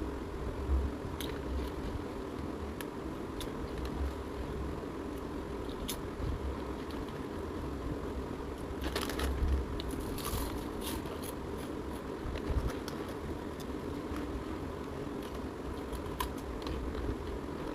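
Crunchy chips being bitten and chewed close to the microphone, with scattered crisp crunches, a burst of several around the middle, over a steady low rumble.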